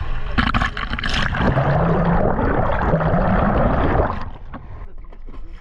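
Seawater splashing and rushing over the camera as it rides at the ocean surface, going quieter and muffled about four seconds in as the camera goes under the water.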